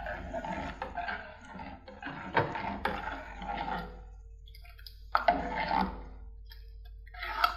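Steel spoon stirring thick rice porridge in an aluminium pressure-cooker pot: wet sloshing with scrapes and light knocks of the spoon against the pot, in about four short bursts with quiet gaps between.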